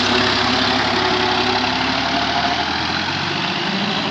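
Tractor's diesel engine running steadily under load while it drives a rotary tiller through wet paddy mud, growing slightly fainter as it moves away.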